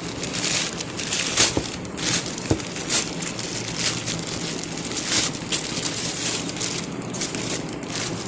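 Black plastic courier bag crinkling and rustling as hands handle it and pull it open, with irregular sharp crackles throughout.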